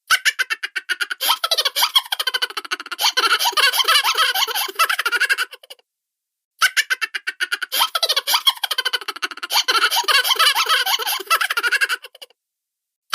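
Cartoon-style laughter, high-pitched and rapid, in two takes with a short silence between them about six seconds in.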